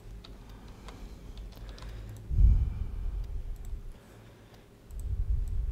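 Computer keyboard typing and mouse clicks, a scatter of light clicks, with two stretches of low rumble: a brief one about two and a half seconds in and a longer one near the end.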